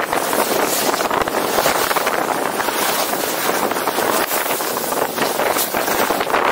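Wind rushing over the microphone of a skier's camera during a fast downhill run, mixed with the steady hiss and scrape of skis on hard-packed snow, rising and falling in gusts.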